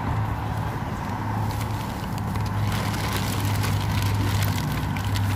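A steady low machine hum, with crackling and rustling from trash being handled that starts about halfway through.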